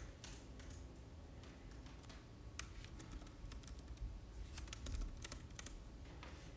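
Typing on a computer keyboard: faint key clicks in irregular runs, busiest in the middle and again near two-thirds through.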